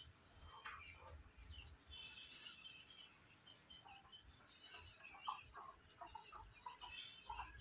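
Faint, scattered bird calls and chirps, short notes coming and going over a quiet outdoor background.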